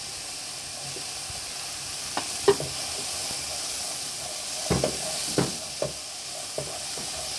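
Freshly added chopped onions sizzling in hot oil in a frying pan, stirred with a wooden spatula that knocks against the pan several times. The sharpest knock comes about two and a half seconds in.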